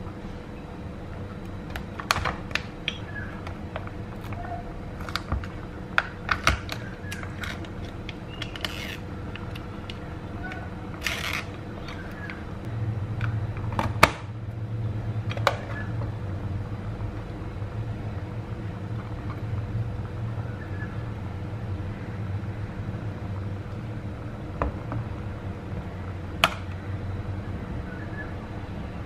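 Handling sounds of a metal spoon and a plastic gochujang tub: scattered clicks, taps and short scrapes as the lid is opened and chilli paste is spooned out. About halfway through a low steady rumble starts and carries on.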